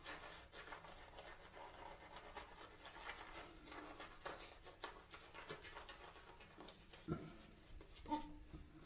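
Faint, repeated scratchy strokes of a Feather ASD2 double-edge safety razor cutting through lathered beard stubble, with two soft knocks near the end.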